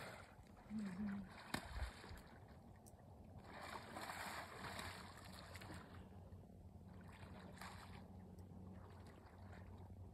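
Quiet lakeshore ambience: a faint wash of wind and lapping water over a low steady hum, with a brief low sound about a second in and a sharp click soon after.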